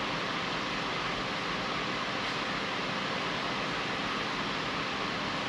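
Steady, even rushing air noise with a faint hum beneath it, the sound of a large fan running.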